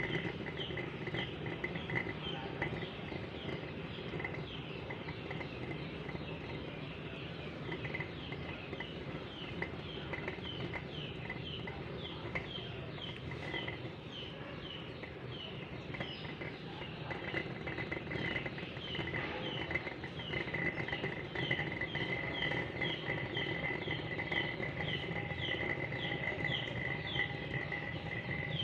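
A bird chirping over and over, short high falling chirps about two a second, over a steady low background noise.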